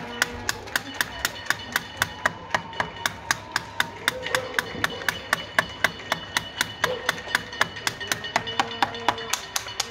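Steady hand clapping close by, about five claps a second, a crowd's applause in thanks to health workers, with fainter sounds from along the street behind it.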